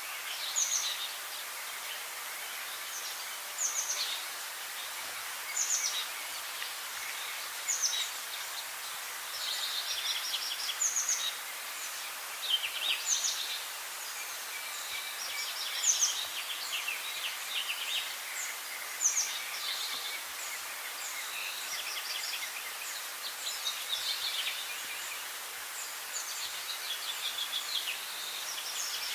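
Songbirds singing short, high chirping phrases, one every second or two, over a steady outdoor hiss.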